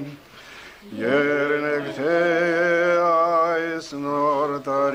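Elderly man singing an Armenian folk song unaccompanied. After a short breath pause he draws out long held notes with a wide, wavering vibrato.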